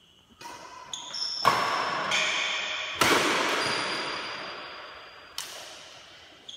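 Badminton rackets striking the shuttlecock in a doubles rally: about seven sharp hits, the loudest about a second and a half and three seconds in, each leaving a long echo that rings on in a large metal-walled hall.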